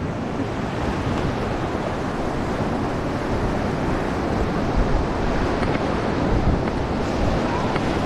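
Rushing white water of the Ganges heard from a raft paddling into a rapid, growing slowly louder, with wind buffeting the microphone.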